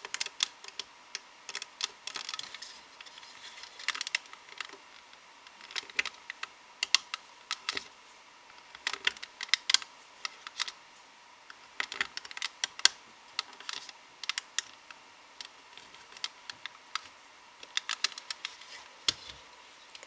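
Irregular small clicks and taps of a loom hook against the pegs of a clear plastic rubber-band loom, coming a few a second in bursts as loom bands are pulled up over the pegs.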